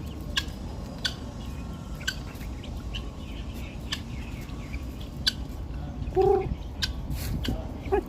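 A bird gives a short call about six seconds in and a smaller one near the end, among scattered sharp clicks and a steady low rumble.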